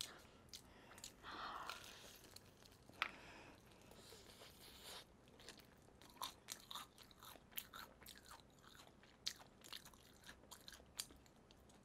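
Quiet, close chewing of crispy Golden Olive fried chicken: scattered short crunches and clicks of the crust between the teeth, with one louder crunchy bite about three seconds in.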